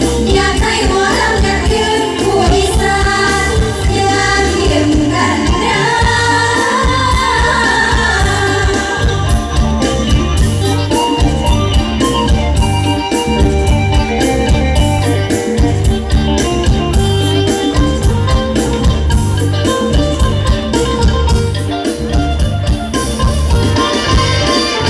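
Isan-style (northeastern Thai) music: a voice singing over a steady, heavy bass beat.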